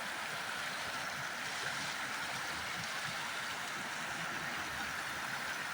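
Steady rush of a river's water flowing over rocks.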